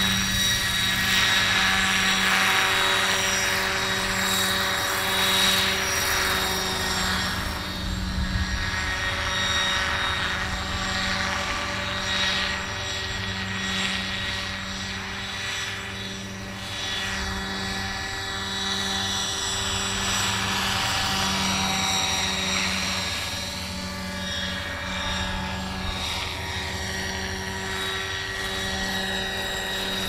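Large remote-control scale Hughes MD 500D helicopter flying low: a steady whine from its drive and rotors, with the pitch sweeping and the level swelling and fading as it passes back and forth.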